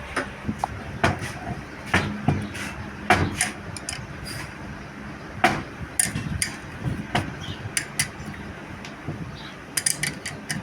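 Irregular metallic clinks and knocks of hand tools and compressor parts being handled and set down during assembly of a Volvo F10 twin-piston air compressor.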